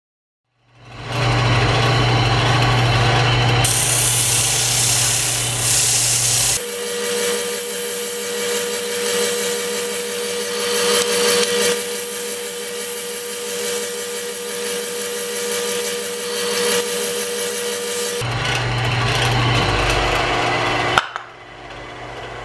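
Woodshop power tools shaping wooden pattern blocks in several edited stretches, chiefly a spindle sander running and sanding the curved edges of the blocks. The machine sound changes abruptly a few times and drops sharply near the end.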